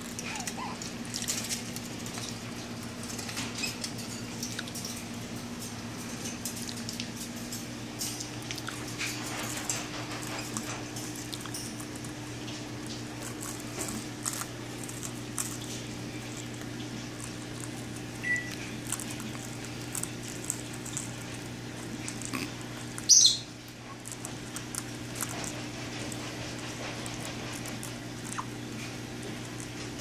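Black-headed caique biting and crunching a graham cracker, with scattered small crackling bites over a steady low hum. One short, loud, high-pitched squeak stands out about two-thirds of the way through.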